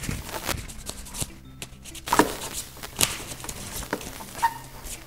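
Scraping and sharp clicks of hard plastic parts of a Power Wheels ride-on toy being handled and worked on, with a few louder knocks about two, three and four and a half seconds in.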